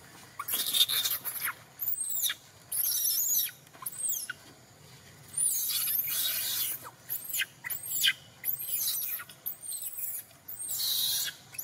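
Baby long-tailed macaque crying: a run of high-pitched squeals that rise and fall, broken by harsher screams, the cries of an infant wanting to nurse.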